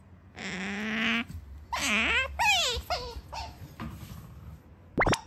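Asian small-clawed otter calling: a long steady whine, then two swooping whines and a few short chirps, ending with two sharp rising squeaks near the end.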